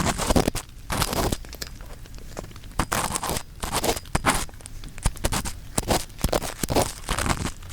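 An earpick scraping inside the ear of a 3Dio binaural microphone, in a series of short scratchy strokes roughly one a second.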